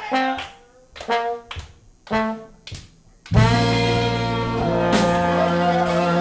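Live klezmer-punk band: horns play a few short, separated stabs with near-silent gaps between them. About three seconds in, the full band comes in loudly with drums, bass and sustained horns.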